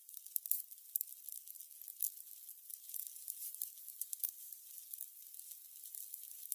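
Burning candles crackling: irregular small crackles and ticks over a faint high hiss, with one sharper pop a little after four seconds.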